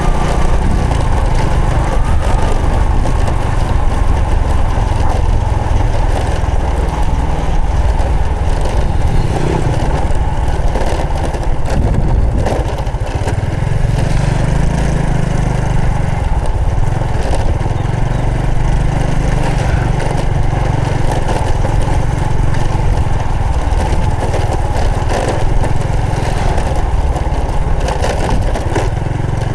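Honda Supra X 125 FI's single-cylinder four-stroke engine running steadily while riding, its note shifting up and down a few times partway through.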